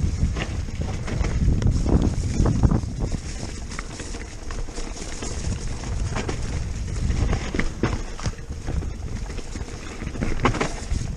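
Giant Stance E+ electric mountain bike descending a rough dirt trail at speed: the bike rattles and knocks over bumps, with many irregular clicks over a steady low rumble.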